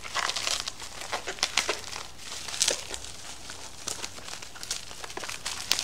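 Parcel packaging being unwrapped by hand, crinkling and crackling irregularly, with sharper crackles now and then.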